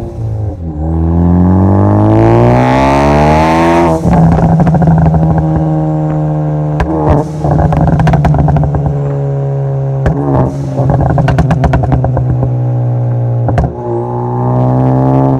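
Ford Focus ST's turbocharged EcoBoost four-cylinder, breathing through a Cobb exhaust with a catless downpipe and a crackle-and-pop tune, revs up under acceleration and shifts about four seconds in. It then runs at fairly steady revs, with exhaust crackles and pops coming in bursts several times.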